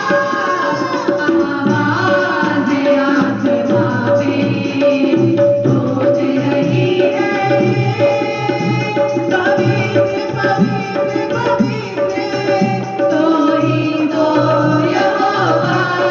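Hindi Christian worship song (masih geet) music led by tabla drumming, with pitched melodic instruments over a steady beat.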